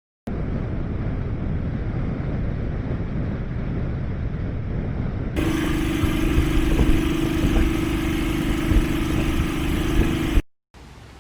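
Motorcycle riding sound from an on-board microphone: the Honda FTR223's engine under steady running, mixed with heavy low rumble from wind. About five seconds in it cuts abruptly to a brighter section with a steady humming tone, and it cuts off again near the end.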